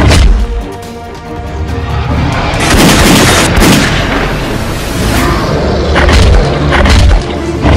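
Action-film soundtrack: dramatic music over a deep steady rumble, broken by several sharp booms and bangs like explosions or gunfire.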